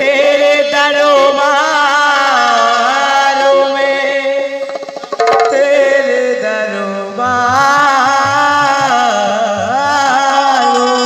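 Instrumental opening of a Hindi devotional Mata bhajan: a long, wavering melodic line over tabla-style hand-drum strokes, with the drums coming in more strongly about seven seconds in.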